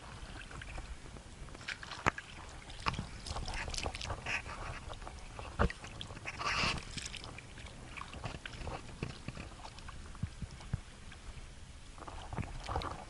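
Oars splashing and knocking at irregular moments as an inflatable boat is rowed through choppy waves, with a louder splash about six to seven seconds in.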